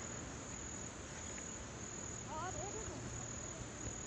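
Insects shrilling steadily in the grass: a high-pitched continuous trill that swells in a regular pulse.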